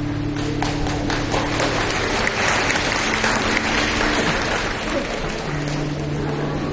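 Audience applauding: a crowd of hands clapping that swells about a second in and dies down near five seconds.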